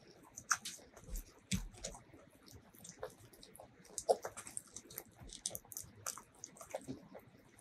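Close-miked eating sounds: wet mouth smacks and chewing of duck curry and rice eaten by hand, with fingers squishing the sauce-soaked rice. They come as scattered short, sticky clicks, the strongest a little after four seconds as a piece of meat reaches the mouth.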